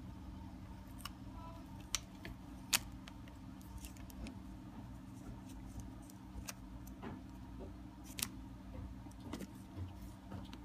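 Handling noise from a tubular roller shade motor and its plastic adapter ring and drive wheel: scattered clicks and light taps of plastic and metal parts, the sharpest a little under three seconds in. A steady low hum runs underneath.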